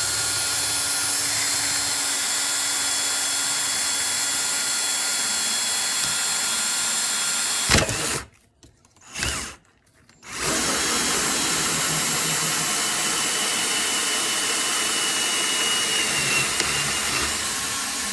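Oscillating multi-tool cutting through a motorcycle's plastic airbox, running steadily, stopping for about two seconds roughly eight seconds in with one short blip, then running again.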